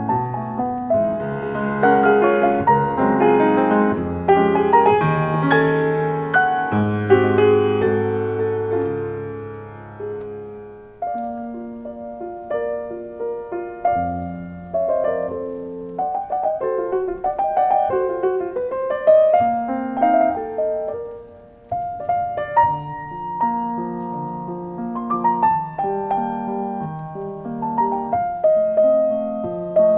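Solo piano playing a melodic piece. The playing dies away twice, about eleven and about twenty-two seconds in, then picks up again.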